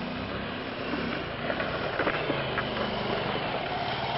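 Motorcycle engine running under load as the bike climbs a rough dirt trail and comes up close, its note dropping in pitch partway through.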